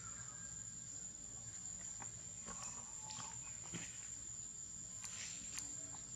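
Steady high-pitched drone of insects, with a few faint ticks and rustles of dry leaf litter under a small monkey's steps.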